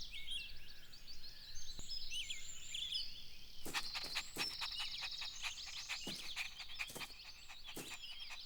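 Outdoor nature ambience of many small birds chirping, with a rapid high trill in the middle and scattered sharp clicks.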